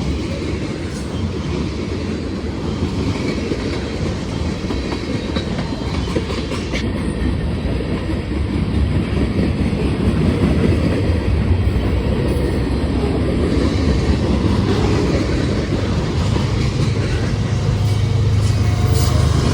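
Freight train cars rolling past, wheels clicking over the rail joints, with a steady rumble that grows a little stronger near the end.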